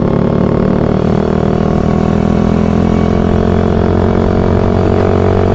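Suzuki Satria FU motorcycle engine running at a steady speed, its note unchanging.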